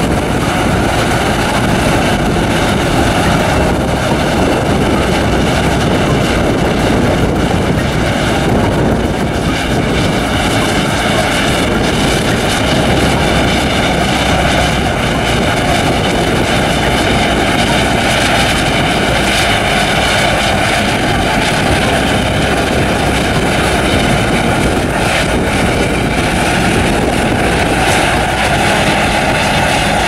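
Claas Lexion 530 combine harvester running steadily while harvesting, a loud continuous machine drone with no changes.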